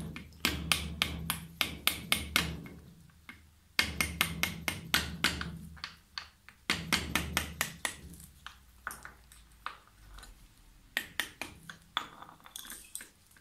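Small hammer tapping a screwdriver used as a drift to drive a tight gudgeon pin (wrist pin) out of a warmed Triumph Trident T160 piston. The taps come in three quick runs, then slower single taps.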